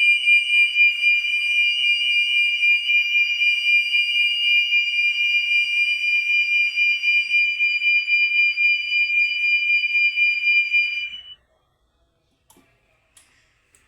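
GFE Orion conventional fire alarm system sounding a steady, high-pitched electronic alarm tone, which cuts off abruptly about eleven seconds in.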